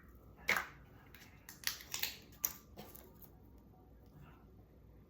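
A handful of short, sharp clicks and taps from kitchen utensils being handled, as a measuring spoon and spice container are used to add onion powder to a mixing bowl. They come within about the first three seconds, then it goes quiet apart from a faint room hum.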